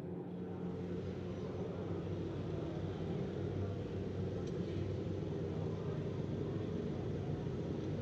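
Racing motorcycle engines idling at the start line, a steady low running sound that swells slightly in the first second and then holds.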